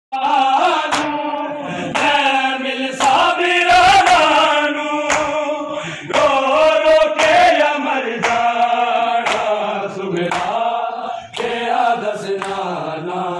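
Male voices chanting a noha (Shia mourning lament), a lead reciter on a microphone with the crowd singing along, over sharp hand slaps about once a second from men beating their chests in matam.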